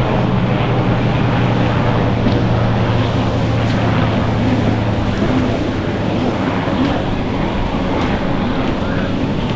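Racing jet ski engine running at speed as the ski rounds a buoy, mixed with wind buffeting the microphone. A low steady hum fades out about halfway through.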